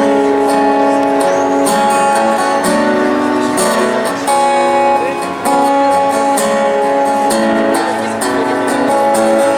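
Instrumental intro of a song played on acoustic guitar: strummed chords under a stepping melody line, with no singing yet.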